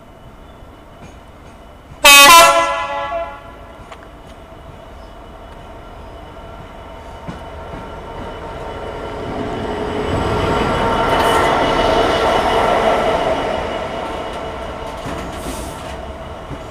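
Class 66 diesel locomotive 66552 sounds its horn once about two seconds in: a loud blast of about a second and a half. Its two-stroke EMD V12 engine then grows louder as the locomotive runs past close by, peaking around ten to thirteen seconds in, and gives way to the rumble of loaded container wagons rolling past.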